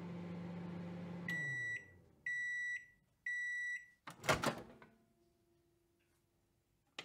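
Microwave oven running with a steady hum that winds down as it stops, then three beeps as the timer ends, and the door latch clicking open about four seconds in.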